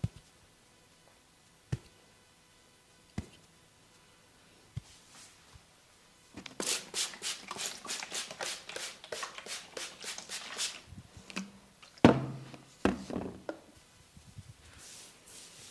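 Head massage on a person's hair and scalp: a few soft clicks, then a run of quick, even scratching strokes through the hair lasting about four seconds, followed by a few heavier slaps or thuds, the loudest about twelve seconds in.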